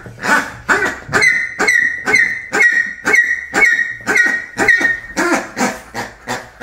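Pink rubber squeaky pig toy squeezed over and over, giving a steady run of short squeaks, about two a second.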